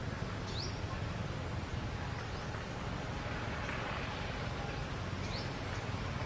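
Outdoor ambience: a steady low rumble and hiss, with a short high bird chirp about half a second in and again near the end.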